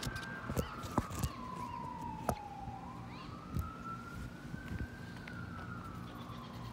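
Faint emergency-vehicle siren in a slow wail, falling in pitch for about three seconds and then rising again, with a few sharp clicks over it.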